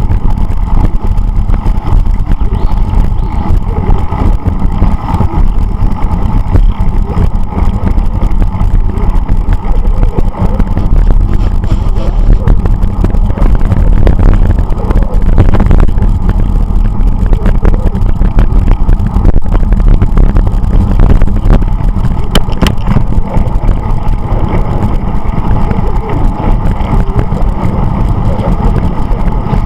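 Steady, loud rumble of wind buffeting and road noise on a camera riding along a road on a bicycle.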